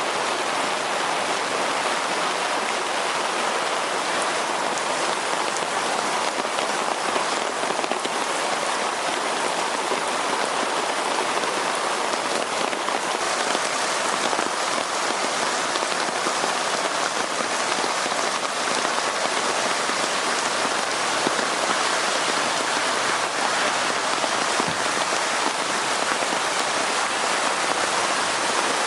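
Heavy rain pouring down and splashing on hard surfaces, a steady dense hiss throughout.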